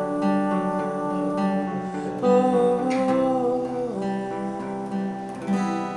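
Acoustic guitar strummed in a steady accompaniment, with a long wordless sung note held from about two seconds in.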